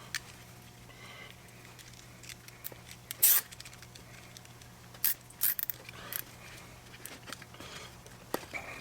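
Hand work on a car window-lift cable: scattered small clicks and short scrapes, the loudest about three seconds in and a cluster around five to six seconds, over a steady low hum.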